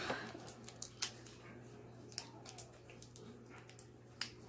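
Fingers picking at and unwrapping a small plastic candy wrapper: faint, scattered crinkles and clicks.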